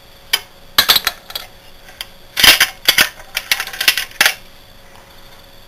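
Broken connecting-rod and counterbalance-shaft fragments of a Briggs & Stratton vertical-shaft engine clinking and rattling in the crankcase as they are picked out by hand. They are the debris of a thrown con rod. A string of sharp metallic clicks and clanks runs for about four seconds, loudest about halfway, then stops.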